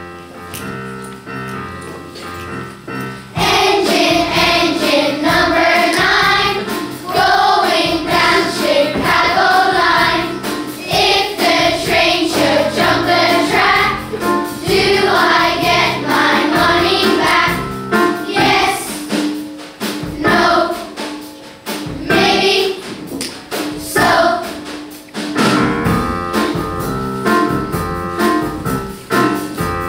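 Children's choir singing in unison over a piano accompaniment. The piano plays alone for about the first three seconds before the voices come in, and near the end the singing drops out while the piano carries on.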